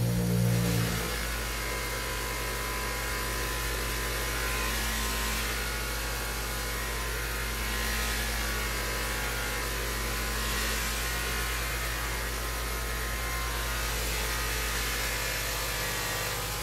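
Bench buffer motor running with a steady low hum while a golf iron head is pressed against its spinning cotton buffing wheel, the buffing adding a rushing hiss that swells and eases as the head is worked across the wheel.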